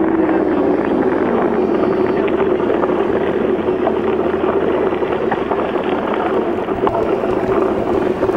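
Wind rushing over the microphone of a mountain bike riding down a dirt track, with steady tyre noise and small rattles and knocks over the bumps.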